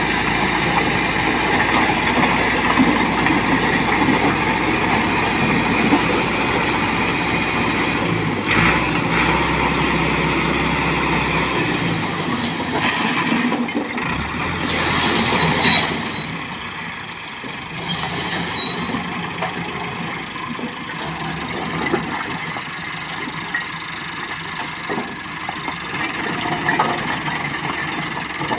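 Massey Ferguson 385 tractor's diesel engine running at raised revs to drive the hydraulic tipping of a loaded brick trolley, with a few clattering knocks as the bricks slide off. About halfway through the engine drops back to a lower, quieter run as the trolley bed comes down.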